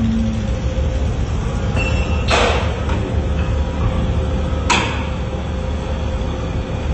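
Machine running steadily with a low rumble and a faint steady tone. Two short, loud hissing bursts cut in, a little over two seconds in and again near five seconds.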